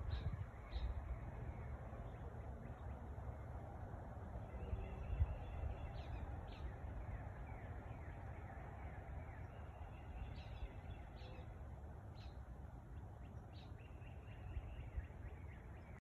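Wild birds calling in woodland: short high chirps scattered through, with faint warbling song, over a steady low rumble.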